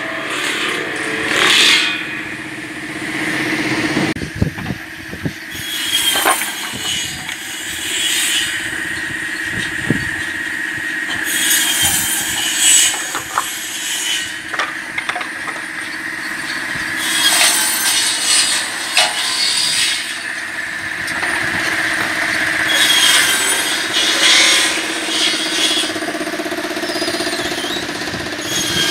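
Automatic circular cross-cut saw running steadily and cutting sawmill slab offcuts into firewood lengths. Each cut is a harsh burst about two seconds long, coming roughly every six seconds over a steady machine hum.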